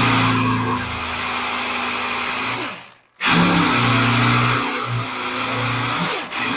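Handheld power tool mechanically stripping paint, primer and filler off an aluminum car door skin: a steady motor hum under loud grinding noise. It is switched off and winds down just before three seconds in, then starts up again at once.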